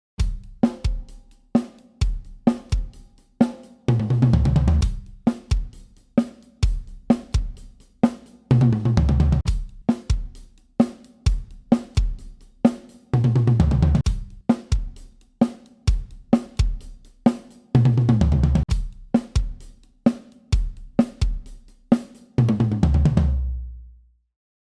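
Acoustic drum kit playing the same short pattern of snare, tom and bass-drum hits with cymbals five times over, each round ending in a low ringing hit. The repeats compare the drums' sustain and overtones with and without a Mini Muff dampener on the head, and the last hit rings out and fades near the end.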